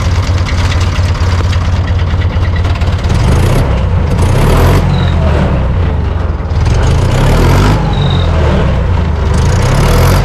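IHC 644 tractor's diesel engine running, heard from the driver's seat. The engine note is even at first, then rises and falls from about three seconds in.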